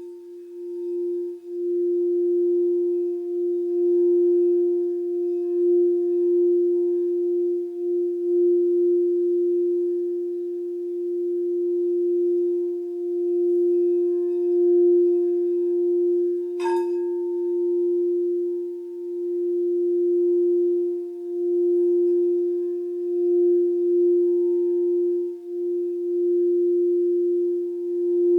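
Crystal singing bowl for the heart (Anahata) chakra, sung continuously around the rim: one steady pure tone with a slow pulsing wobble and faint higher overtones. A single sharp click of the mallet against the bowl comes a little past halfway.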